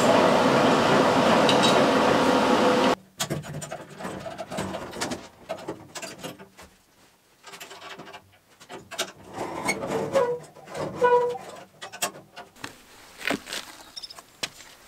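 A loud, steady mechanical noise that cuts off abruptly about three seconds in. After it come scattered metal clicks and clanks, a few of them ringing, from a hand winch and its steel cable being rigged and cranked on a steel frame.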